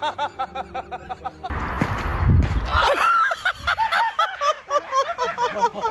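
A person laughing hard in quick, high-pitched bursts, cut across a second and a half in by a loud, muffled rumble.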